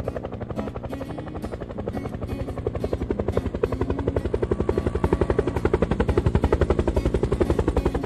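Helicopter flying overhead, its rotor blades beating in a rapid, even thump that grows louder and cuts off suddenly near the end.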